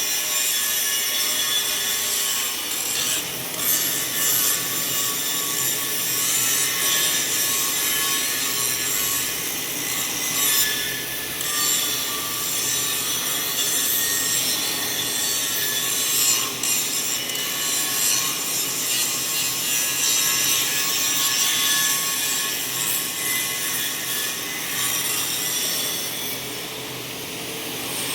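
Angle grinder grinding a welded steel pipe to finish it, a steady high-pitched grinding that rises and falls slightly in loudness as the disc is worked along the metal.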